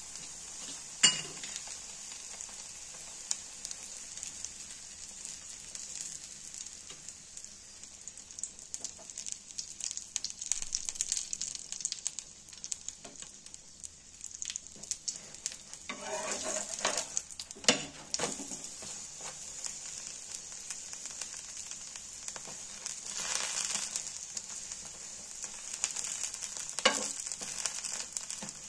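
Methi aloo paratha frying in ghee on an iron tawa: steady sizzling with fine crackle, broken by a few sharp clicks of a slotted steel spatula on the tawa, the loudest about a second in.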